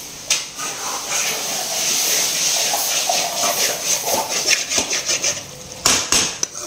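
Steel ladle stirring and scraping a thick, simmering vegetable gravy in an aluminium kadai, over a steady hiss from the pan, with a few sharp knocks of metal on metal near the end.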